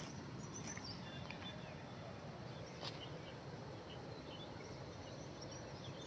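Outdoor ambience: a steady low rushing noise with faint bird chirps scattered through it, and one sharp click about three seconds in.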